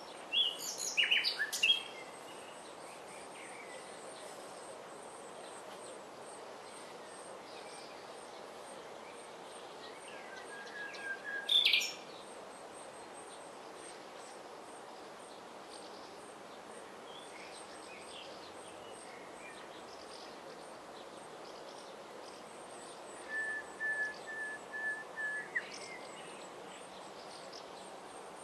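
Common nightingale singing in three separate phrases: a loud burst at the start, another about eleven seconds in, and near the end a run of repeated whistled notes on one pitch ending in a rising flourish.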